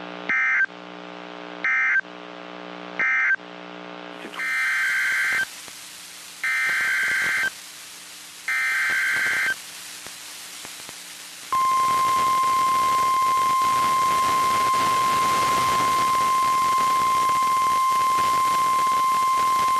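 NOAA Weather Radio emergency alert signals: three short bursts of SAME digital data tones, then three longer bursts, then the steady 1050 Hz warning alarm tone held for about nine seconds before cutting off. The short bursts are the end-of-message code closing the previous warning, and the longer ones are the SAME header of the next warning, which the alarm tone announces.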